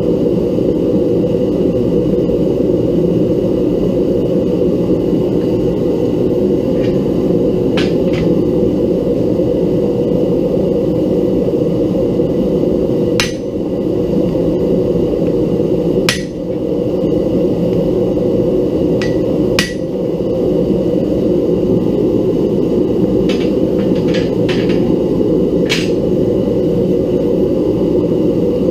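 Gas forge burner running with a steady roar, while a hammer strikes metal about ten times at irregular intervals, the sharpest blows around the middle.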